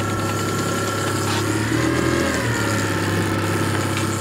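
Boat engine running steadily at low speed: a low hum with a thin, steady higher whine over it.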